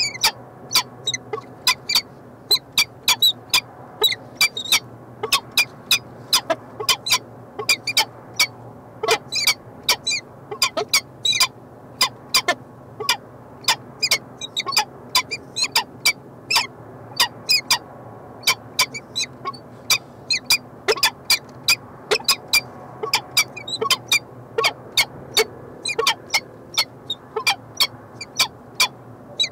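A pair of peregrine falcons calling in a rapid, irregular series of short, sharp notes, several a second, some falling quickly in pitch. These are the calls that go with the pair's face-to-face bowing courtship display in the nest scrape.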